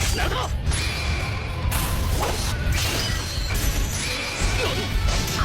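Anime fight sound effects: sudden crashing, shattering hits and short whooshes over dramatic background music with a heavy bass.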